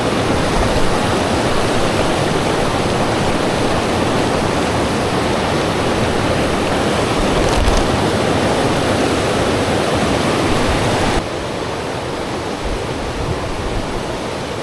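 Rushing river water, a steady loud hiss that drops abruptly to a quieter level about eleven seconds in.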